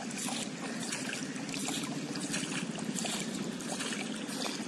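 Water rushing and splashing along the hull of a moving boat, over a steady low drone.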